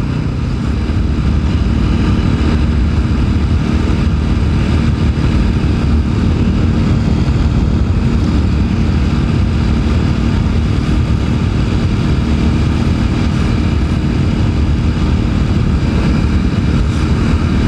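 TVS Apache RTR 200 4V's single-cylinder engine and exhaust running at a steady cruise while riding, under a constant rush of wind noise on the microphone.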